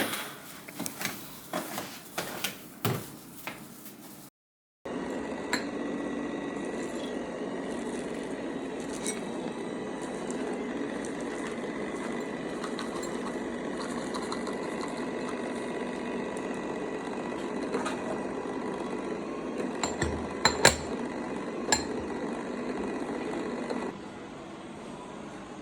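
Cat food bowls and dry food clinking several times, then a steady background hum with a few more clinks near the end.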